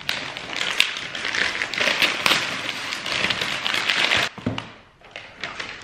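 Brown kraft paper wrapping being torn and crumpled off a parcel: a dense crackling rip for about four seconds that stops suddenly, followed by a soft knock.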